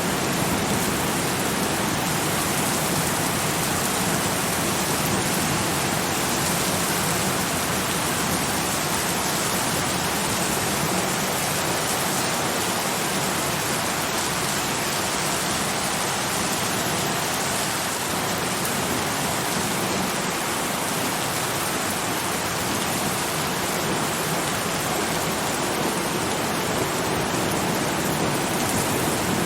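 Steady rain, a dense, even hiss of falling rain with no distinct drops, thunder or changes.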